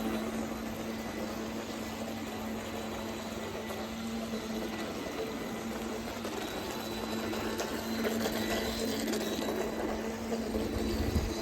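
Feilun FT012 brushless RC racing boat running on the water: a steady motor whine over water noise, getting a little louder about eight seconds in.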